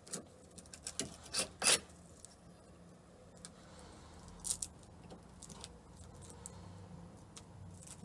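A hand tool scratching and scraping old paint off a wooden boat's stem post in short, sharp strokes: a quick run of them in the first two seconds, the loudest near the end of that run, then a few sparser strokes later.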